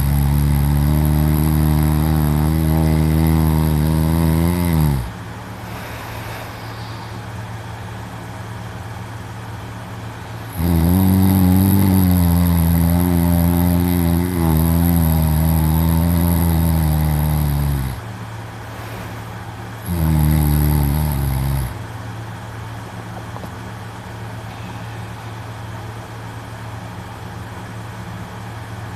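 A young man snoring loudly in his sleep: three long, low, steady snores, the middle one about seven seconds long, with a quieter steady hum in the pauses between them.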